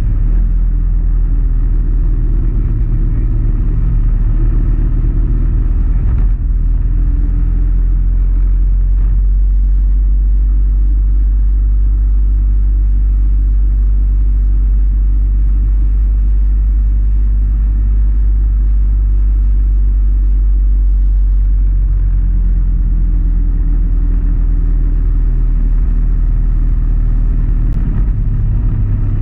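Motorcycle engine running at road speed under heavy wind rumble on the microphone. The engine note is clear at first, sinks under the wind rumble for a stretch in the middle, and comes up again with shifting pitch near the end.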